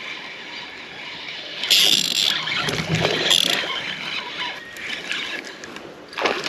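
Casting with a spinning rod: a short hiss of line running off the reel about two seconds in, and a second, shorter hiss a little past halfway.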